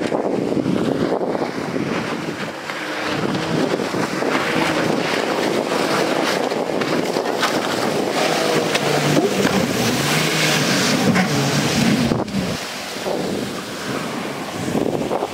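Small speedboat's motor running at speed, its pitch shifting as it goes, over the hiss of water spray and wind on the microphone. It breaks off sharply about twelve seconds in and is quieter after that.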